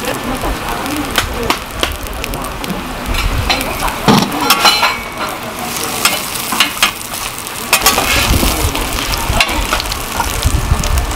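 Korean savory pancakes (buckwheat and water-dropwort jeon) sizzling in oil on a flat steel griddle, with repeated short scrapes and clacks of a metal scraper and knife against the griddle as the pancakes are cut and pressed.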